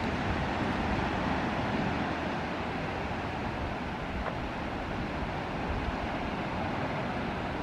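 Steady rushing noise of wind buffeting the microphone, with an uneven low rumble and no distinct events.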